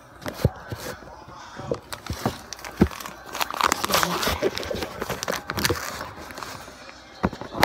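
Handling noise from a phone held close: fingers rubbing over and knocking against its microphone, with scattered sharp clicks and a longer stretch of rustling in the middle.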